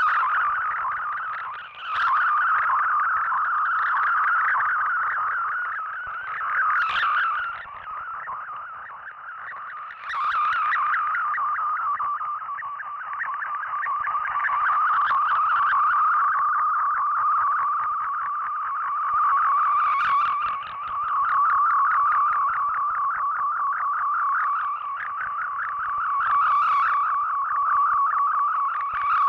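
Shortwave radio receiving a digital-mode data transmission: a continuous warble of rapidly stepping tones packed into a narrow audio band, with the signal fading and swelling.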